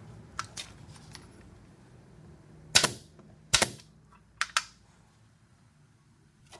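A series of sharp knocks and clacks from hard objects being handled: a few small clicks first, two loud knocks near the middle, then a lighter quick pair.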